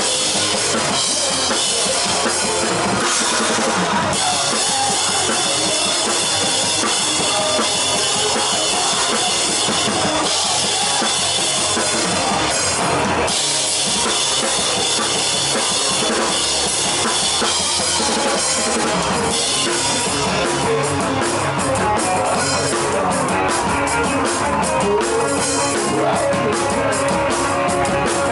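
Live rock band with a drum kit played loudly up front: bass drum, snare and heavy cymbal wash, with rapid hits building in the last third.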